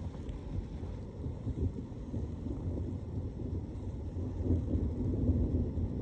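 Wind buffeting the microphone: a low, uneven rumble that swells and dips.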